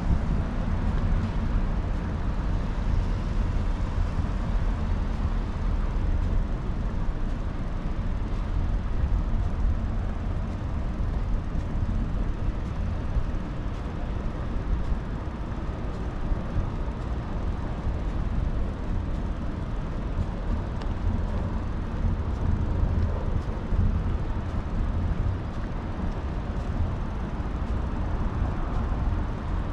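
Steady low rumble of wind buffeting the microphone on a moving bicycle, with road noise in the background.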